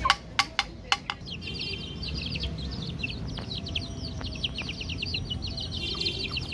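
Newly hatched chicken chicks peeping: many rapid, high-pitched chirps that fall in pitch, overlapping without a break. In the first second, a handful of sharp taps come before the peeping.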